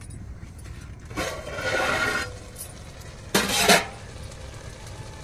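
Metal pot lid being worked loose and lifted off a cooking pot: a scraping rasp about a second in, then a louder metallic clank with a short ring about three seconds in.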